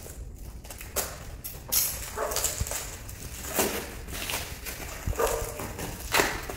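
Black plastic parcel wrapping crinkling and tearing as it is pulled off a stack of small cardboard boxes, in irregular rustling bursts.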